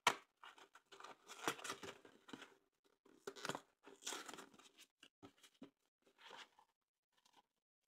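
Foil wrapper of a Kinder Surprise chocolate egg being torn open and crinkled: a sharp tear right at the start, then irregular short bursts of rustling foil.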